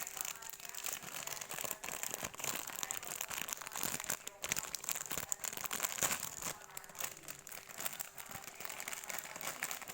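Food wrapper crinkling and rustling close to the microphone, a dense run of small crackles as snacks are handled and unwrapped.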